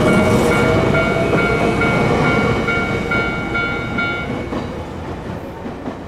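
Level-crossing warning bell dinging about twice a second over the rumble and wheel clatter of a passing Jōmō Electric Railway train. The bell stops about four seconds in as the train clears, and the train noise fades.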